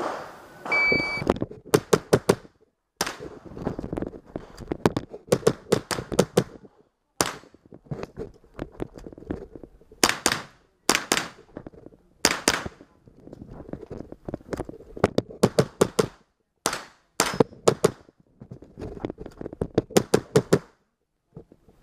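A shot timer's start beep, then a .22 rimfire mini-rifle firing rapid strings of shots in quick clusters of three to six, with short pauses between strings.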